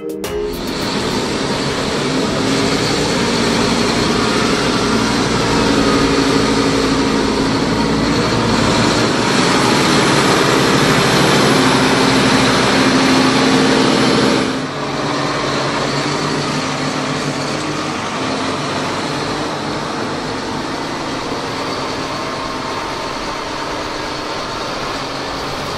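Ploeger AT4103 self-propelled manure applicator with a Tebbe spreader running: a steady, dense mix of diesel engine and spreader machinery. It grows slightly louder, then about halfway through drops and changes abruptly to a steadier, somewhat quieter running.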